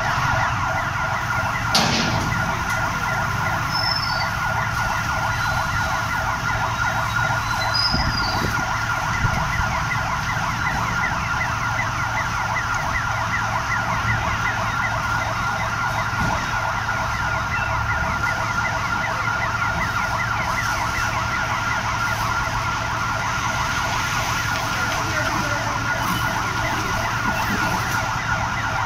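Emergency-vehicle siren sounding without a break, a fast, even warble over a steady tone. A brief sharp knock about two seconds in.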